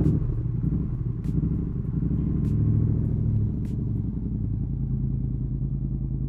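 Yamaha XSR700's parallel-twin engine running steadily, a low pulsing rumble that swells slightly in the middle, with a few faint ticks.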